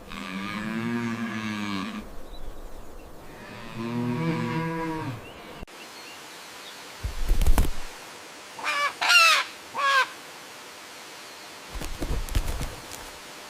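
Cattle mooing: two long, low calls one after the other. A little over halfway through come three short, higher-pitched honking calls from another animal. Two dull low thuds fall between and after them.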